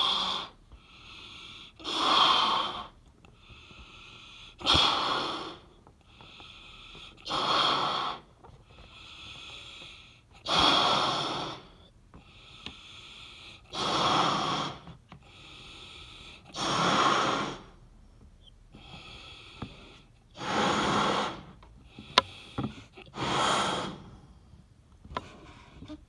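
A person blowing up a balloon by mouth: long, hard breaths blown into it about every three seconds, with quieter inhalations between. One sharp click near the end.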